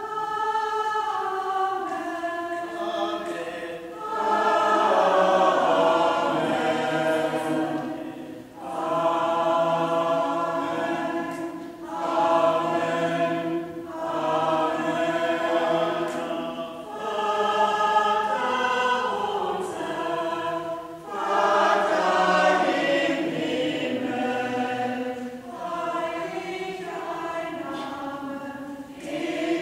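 A church choir of women's and children's voices, with a few men, singing a gospel song in unison phrases of about four seconds each, with short breaks for breath between them.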